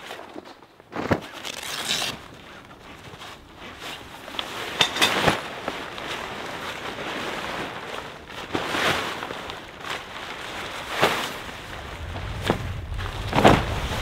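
Fabric of a Gazelle T3X pop-up hub tent rustling and swishing as it is handled, unfolded and spread out, in irregular swishes a second or two apart. A low rumble joins near the end.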